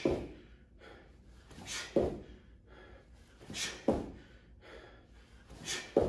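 Feet landing on a rubber gym floor during repeated diamond jumps, a thud about every two seconds, four in all, each with a sharp breath just before the landing.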